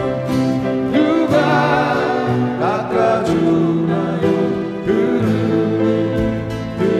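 Live acoustic band playing an instrumental passage of a Korean pop ballad: several strummed and picked acoustic guitars over an electric keyboard, with a melodic line gliding between notes.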